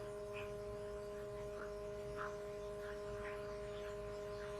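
Steady electrical hum from the recording chain, two constant tones over a faint hiss, with a few faint, irregular ticks.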